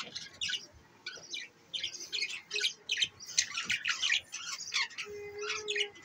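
A group of budgerigars chattering: many short, overlapping chirps in quick succession, with a brief lull about a second in.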